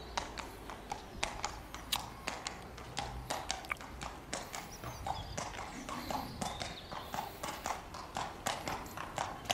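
Footsteps of hard-soled shoes on tarmac: a quick, slightly irregular run of sharp clicks, about three to four a second.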